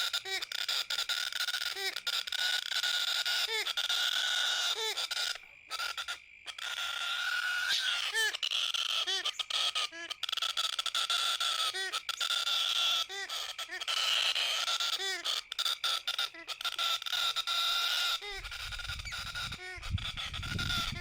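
Baby galah's harsh begging calls, repeated about once a second, over a steady hiss of background birds. A low rumble like wind on the microphone comes in near the end.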